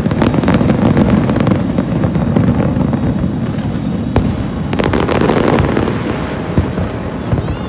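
Aerial fireworks shells bursting in quick succession: a continuous rumble of booms with many sharp cracks and crackles over it, thickest in the first second and again in a fresh cluster about five seconds in.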